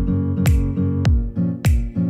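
Upbeat background music: plucked guitar over a steady beat, with a deep kick drum and a sharp hit about every 0.6 seconds.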